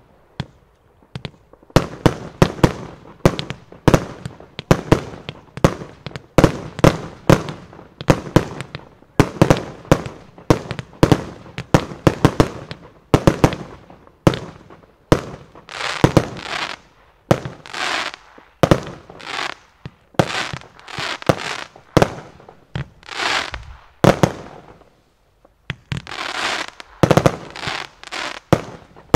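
Professional fireworks display: sharp bangs of bursting fireworks going off in rapid series, several a second, with a brief lull at the start and another about 25 seconds in.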